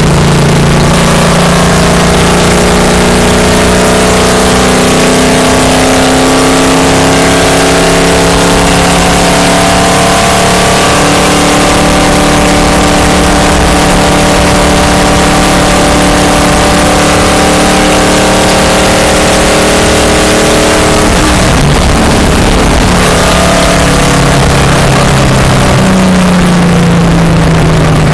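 Stock car's V8 engine running hard, heard on board over heavy wind and road noise. Its pitch climbs slowly for about twenty seconds, dips briefly, then climbs again near the end.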